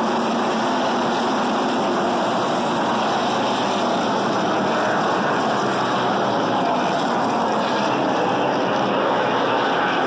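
A pack of NASCAR Truck Series V8 engines accelerating past together on a restart, many engines overlapping in one steady, loud drone.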